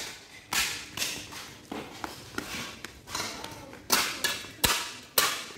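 Footsteps on concrete, a steady walking pace of about two sharp steps a second.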